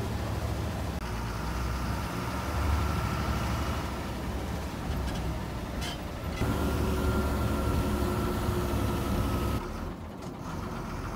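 Small bus's engine and road noise heard from inside the cabin as the bus drives along, a steady low rumble. It gets louder, with a clearer engine note, from about six seconds in, then drops back near the end.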